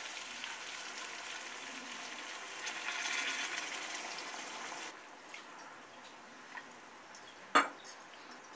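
Water poured from a steel vessel into a hot kadai of frying fish and masala, hissing and sizzling, swelling about three seconds in and falling away about five seconds in. A single sharp knock near the end.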